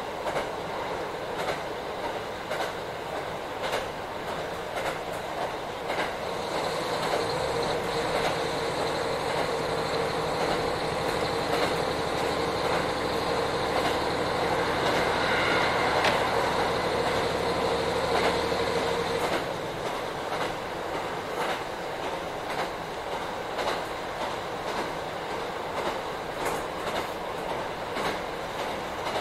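Onboard running sound of a JR Hokkaido KiHa 40 diesel railcar, its wheels clicking steadily over rail joints. About seven seconds in the diesel engine comes under power with a steady drone and whine. It cuts back suddenly about nineteen seconds in, leaving the car coasting to the wheel clicks.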